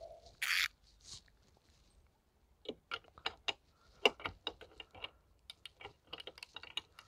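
Ratchet wrench clicking in uneven runs as the nut on an antenna mount is tightened, starting about three seconds in. A short hiss comes near the start.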